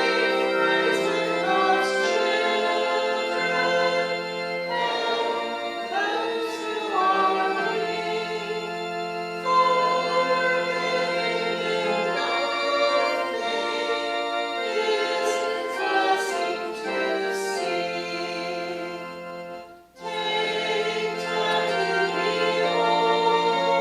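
Organ accompanying a congregation singing a hymn, with long held chords; the music drops out briefly about twenty seconds in before resuming.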